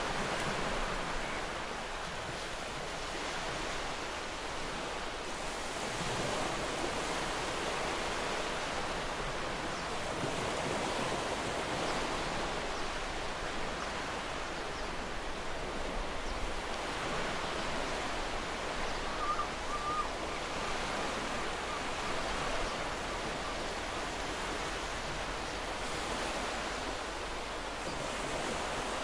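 Sea waves washing on a shore: a steady rushing wash that swells and eases gently, with a brief faint chirp about two-thirds of the way through.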